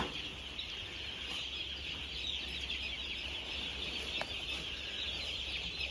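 A shed full of four-day-old broiler chicks peeping together, a dense, steady chorus of high chirps.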